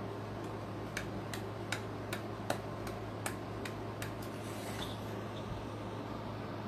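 A run of light, evenly spaced clicks, about three a second, for a few seconds over a steady low hum.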